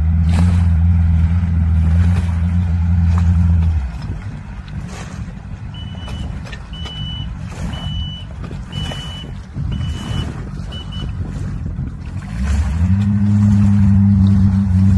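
Amphibious quad bike's engine running steadily, then dropping to a low idle about four seconds in. While it idles, a high electronic beeper sounds about once a second, six times. Near the end the engine revs up and holds as the craft gets under way on the water.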